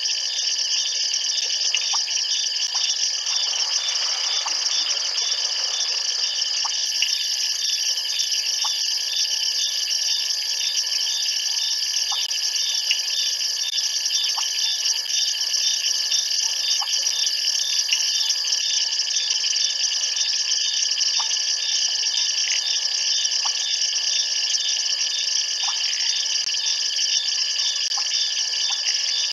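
Night chorus of frogs and insects at a waterhole: dense steady trilling with a rapid regular pulsing and short single calls every second or two. A thin, very high insect note joins for about ten seconds in the middle.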